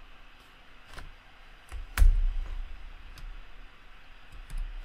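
A handful of separate keystrokes on a computer keyboard, the loudest a heavier key strike about two seconds in.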